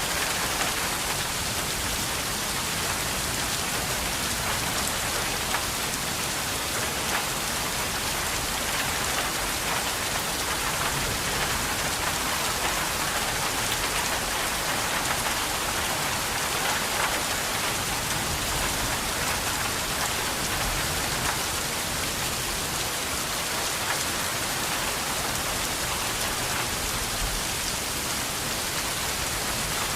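Steady rain falling, an even hiss of drops on a surface with no letup.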